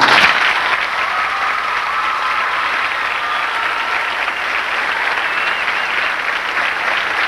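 Audience applauding steadily, starting suddenly and cutting off suddenly at the end.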